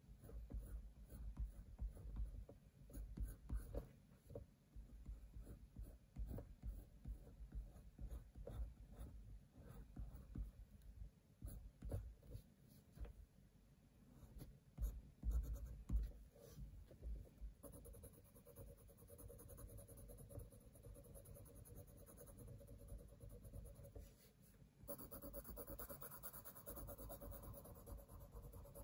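Dark green coloured pencil scratching on sketchbook paper in short, quick shading strokes, faint.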